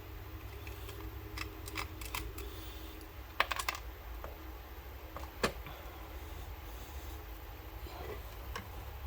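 Scattered light clicks and taps of a small die-cast model car being handled, a quick cluster of them early and a few single ones later, over a steady low hum.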